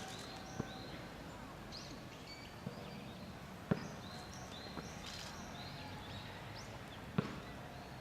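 Great spotted woodpecker pecking at wood: a handful of single, sharp knocks at irregular gaps of one to three and a half seconds.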